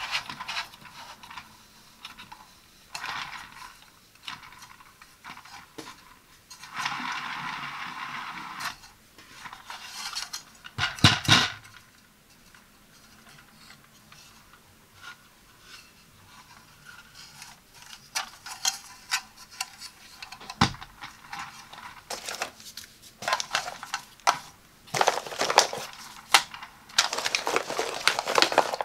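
Hard plastic parts of a coffee pod carousel clicking, knocking and scraping as they are handled and fitted together, with a stretch of rubbing about a quarter of the way in and a loud cluster of knocks about a third of the way in. Near the end, plastic coffee pods click and tap as they are pushed into the carousel's holders.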